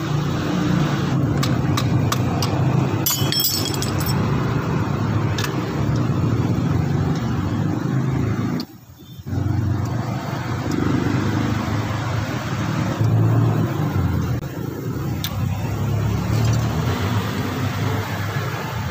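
A few light metallic clicks of a steel pick or screwdriver and pliers against the front wheel hub's axle splines and retaining clip, over a steady low rumble. The sound drops out briefly about nine seconds in.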